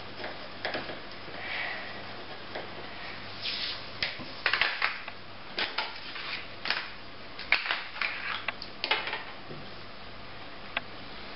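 Coloured pencil rubbing on paper at first, then a run of light clicks and clatters from about four seconds in as coloured pencils are set down and picked up and the paper sheet is shifted on a wooden table. A faint low hum sits underneath.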